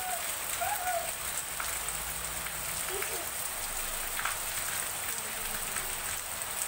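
Heavy rain pouring steadily as an even hiss, splashing on wet concrete and ground.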